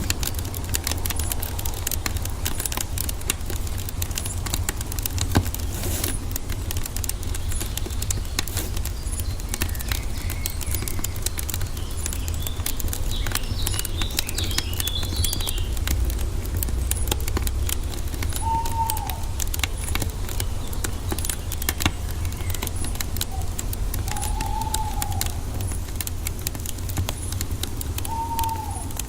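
Wood fire crackling with many small pops and ticks over a steady low rumble. A bird calls a few times in the second half with short, arched whistled notes, and there is a brief high twitter about halfway through.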